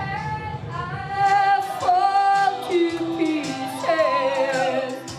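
A woman singing karaoke over backing music, holding long notes with a wavering, falling phrase near the end.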